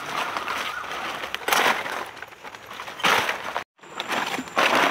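Dry leaf litter crunching and rustling in several louder bursts as someone moves through it. The sound cuts out for a moment about three-quarters of the way through.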